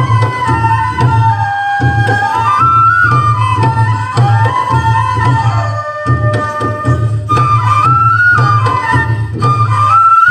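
Folk dance music: a flute melody that moves in small steps and glides, over a steady low drum beat.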